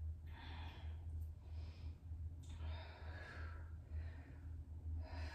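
A woman breathing hard, about four breaths in and out, over a steady low hum.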